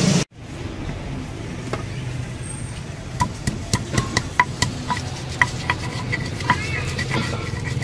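A pestle knocking and grinding in a wide, shallow cobek mortar, sharp ringing knocks, two or three a second, starting about three seconds in.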